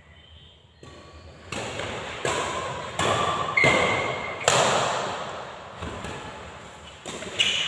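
Badminton rackets striking the shuttlecock in a fast rally: sharp hits in quick succession, each followed by echo in the hall. There is a brief high squeak about halfway through, and a longer gap before the last hit near the end.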